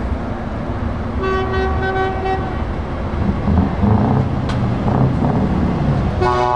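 A lorry's air horn tooting in a few short blasts about a second in, and once more near the end, over the steady rumble of a DAF lorry's diesel engine pulling away, which swells in the middle.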